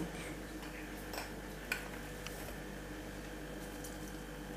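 Quiet kitchen with a faint steady hum and a few light clicks and taps of utensils.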